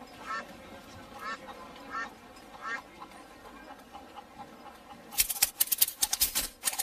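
Short animal calls repeated several times, roughly one a second. From about five seconds in, a loud, fast clatter of sharp clicks takes over.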